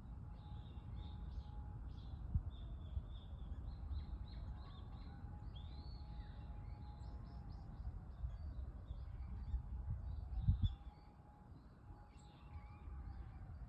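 Many small birds chirping and twittering, with a steady low wind rumble on the microphone. Two louder low thumps, about two and a half and ten and a half seconds in, like wind gusts hitting the microphone.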